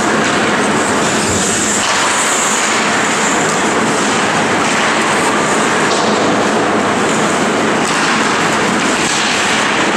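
Steady noisy ambience of an ice hockey game in play in an indoor rink, with skate blades scraping and hissing on the ice.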